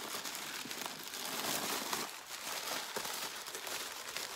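White paper stuffing crinkling and rustling as it is pulled out of a new leather handbag and bunched up in the hands.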